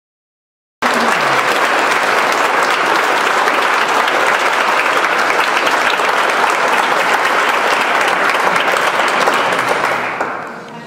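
Large audience applauding, starting abruptly about a second in, holding steady, and fading out near the end.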